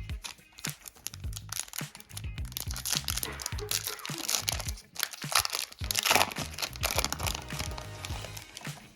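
A trading card pack wrapper being torn open and crinkled, a dense crackling that is loudest about six seconds in, over background music with a steady low beat.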